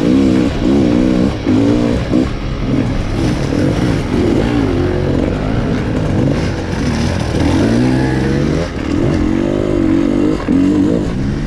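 Dirt bike engine revving up and down as the bike is ridden over rough trail, its pitch rising and falling about once a second, with a longer climb in revs about two-thirds of the way through.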